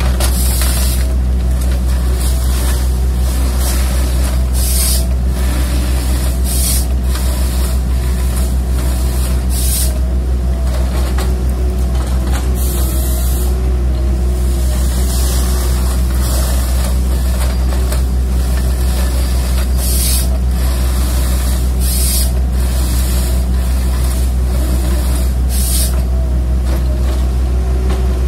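Komatsu tracked excavator with a felling head, its diesel engine running steadily under load. Short hissing bursts come every few seconds.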